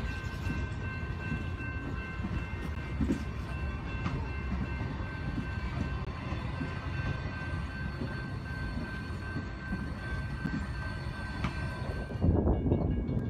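Passenger cars of a steam excursion train rolling past on the rails: a steady low rumble with a few sharp clacks of wheels over rail joints and a steady high-pitched ring over it. Near the end a louder rumble breaks in.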